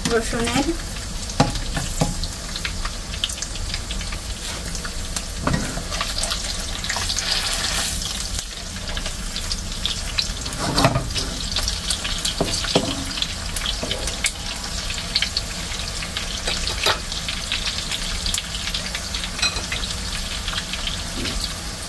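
Salmon fillet and sliced garlic sizzling and crackling steadily in hot butter in a nonstick pan. A few times a plastic spatula scrapes the pan and turns the fillet.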